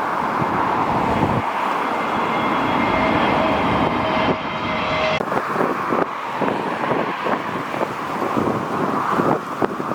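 Jet airliner engines running, a loud steady rush with faint high whining tones that cut off abruptly about five seconds in. Strong gusty wind buffets the microphone.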